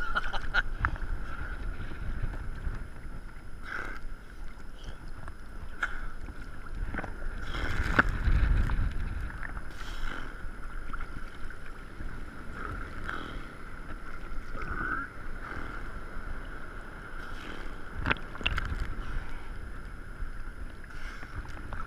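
Ocean water sloshing and splashing against a camera held at the water's surface, with wind on the microphone; a larger swell washes over it louder around eight seconds in, and a few short knocks come through.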